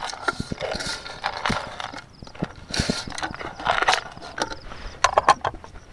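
Metal spoon mixing a mass of cooked noodles in a metal camping pot, with irregular clinks, knocks and scrapes against the pot.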